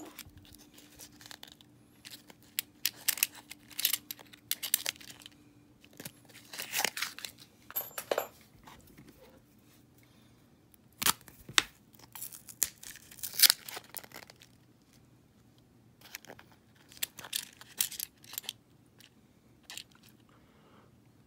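Paper wrappers of half-dollar coin rolls being torn open and crinkled, in short bursts on and off.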